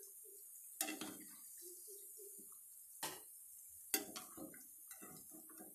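Mutton keema cutlets frying in oil in a pan: a faint, steady sizzle, with three sharp ticks spread through it.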